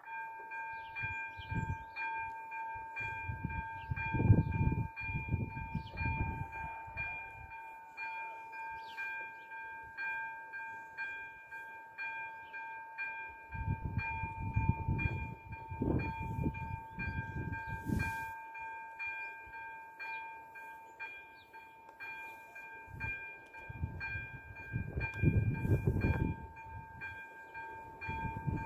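Electronic level-crossing warning bell starting up and ringing steadily with a fast repeating chime, about two strikes a second: the crossing has been activated for an approaching train. Low rumbling swells and fades three times underneath.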